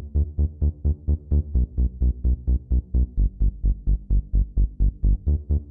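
Background electronic music with a steady beat of about four pulses a second.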